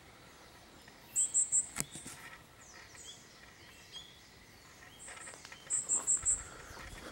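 Iriomote tit giving very high, thin call notes in quick runs: three about a second in, then four more near six seconds in.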